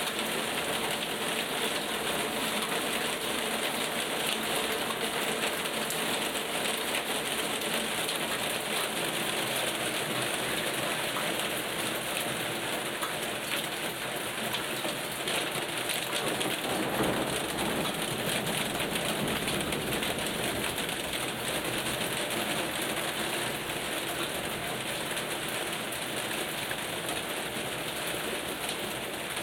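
Steady rain falling from a thunderstorm. A brief swell of deeper sound comes a little past halfway.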